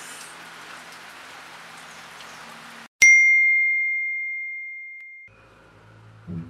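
Steady rain with faint background music, cut off about three seconds in by a single bright ding: a chime sound effect that rings down for about two seconds. Soft music with a plucked bass begins near the end.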